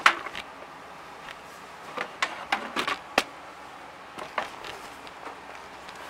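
Scattered clicks and light knocks of handling: a sharp click at the start, a cluster of them about two to three seconds in, and one more about four and a half seconds in.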